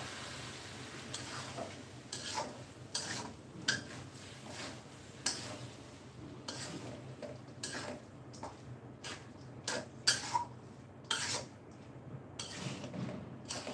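Metal spatula scraping and clinking against a metal wok as spiced rice with potatoes is stirred and turned, in irregular strokes.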